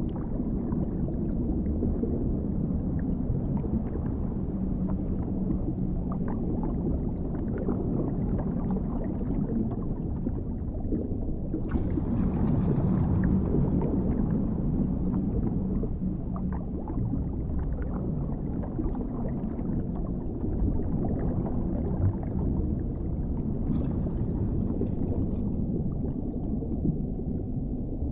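Underwater ambience: a deep, muffled rumble of water with faint gurgles, swelling a little brighter about twelve seconds in.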